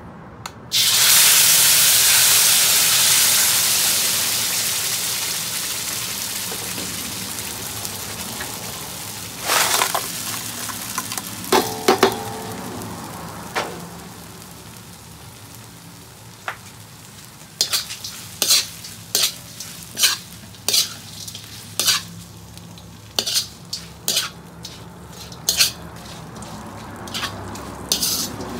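Chili paste hits a hot wok with a loud sizzle about a second in, which slowly dies down. A few knocks follow, then a metal slotted spoon scrapes and clinks against the wok about once a second as shredded smoked skipjack tuna is stirred through the frying paste.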